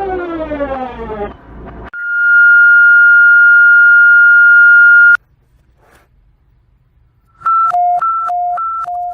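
Emergency alert alarm tones played in reverse: a siren glide falls away in the first two seconds, then a loud steady high tone holds for about three seconds and cuts off sharply. After a short pause, a high-low two-tone beep alternates about three times near the end.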